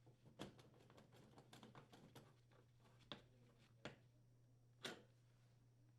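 Faint, scattered light clicks and taps of metal vent ducting being fitted and secured onto the range hood's vent transition damper, with three slightly stronger clicks in the second half, over a faint steady low hum.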